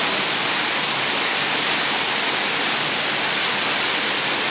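Rainwater gushing heavily from roof drain outlets in several falling streams and splashing onto concrete and paving below: a steady, even roar.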